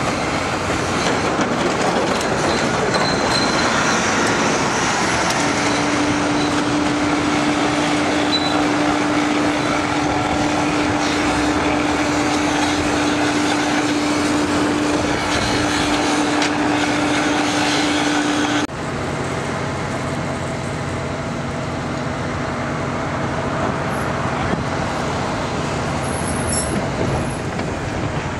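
Steady din of track-maintenance machinery: a rail truck's engine and hydraulic power unit running, driving hose-fed hand tools, with a held hum through the middle. About two-thirds of the way in the sound cuts abruptly to a quieter, lower running noise.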